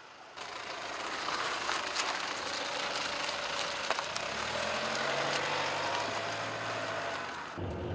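Minivan driving past on a rural road and pulling away: engine and tyre noise, with the engine note rising a little as it passes. Near the end the sound switches abruptly to the steady low engine drone heard inside a moving car.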